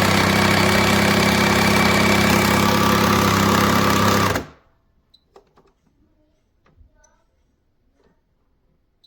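Breville Barista Touch Impress espresso machine running, a loud steady pump hum under a hiss, which cuts off suddenly about four and a half seconds in. After that only a few faint clicks are heard.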